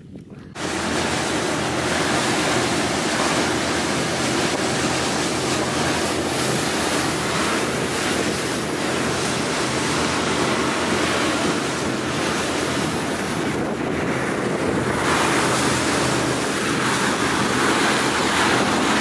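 Wind buffeting the microphone and water rushing past the hull of a boat under way, with a steady low engine hum beneath. It starts abruptly about half a second in.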